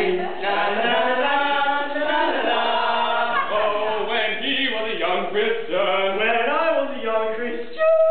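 Several young men's voices chanting and singing together unaccompanied, pitches sliding up and down, with one loud long held note near the end.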